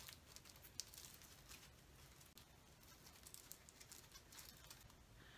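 Near silence with faint, scattered small clicks and rustles: fingers picking at a tight knot in the drawstring of a small gift bag.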